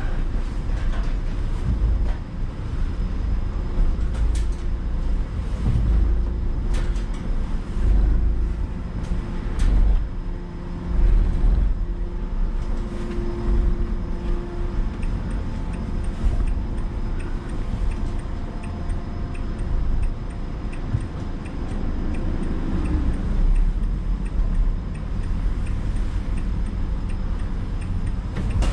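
Van engine and road noise from inside the cab while driving, a steady low rumble. A quick regular light ticking joins in about halfway through.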